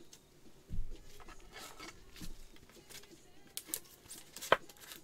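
Plastic rustling and light clicks as a trading card in a soft plastic sleeve is worked into a rigid plastic toploader by gloved hands. There is a dull thump about a second in and a sharp click near the end.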